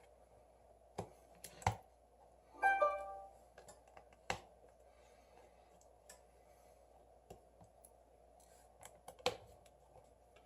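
Small hand tools clicking and tapping against a smartphone during disassembly, a few scattered light clicks, with a short ringing note about three seconds in.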